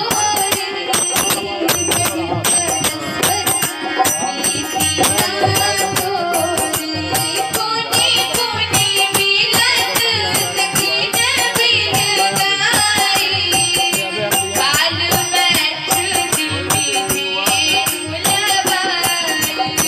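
Hindi devotional bhajan: a harmonium holds steady chords under a fast, even jingling hand-percussion rhythm, and a woman's singing voice comes in about eight seconds in.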